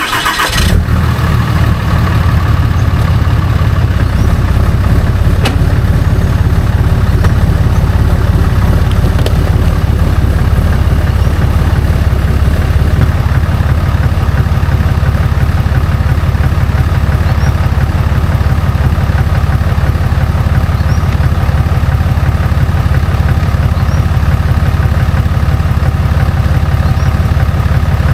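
Ram 2500's Cummins turbo-diesel inline-six idling steadily, a low, even rumble that does not rev or change.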